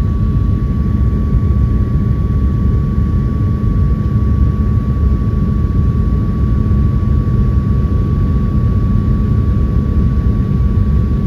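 Airliner cabin noise: a steady low rumble of engines and airflow, with a thin steady whine above it.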